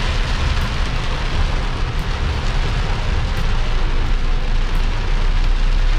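Steady noise of a vehicle driving in the rain: a low road rumble under the hiss of rain.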